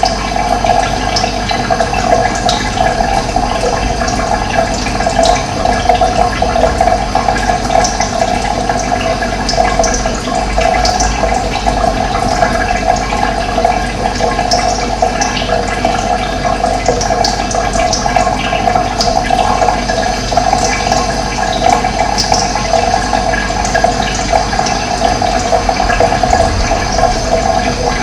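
Running water, a steady unbroken flow.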